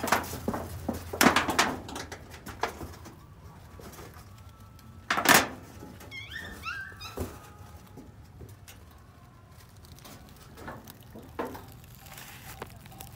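Knocks and rustling in dry leaves and debris, loudest near the start and in one sharp burst about five seconds in, followed by a few short, high gliding squeaks from a young animal.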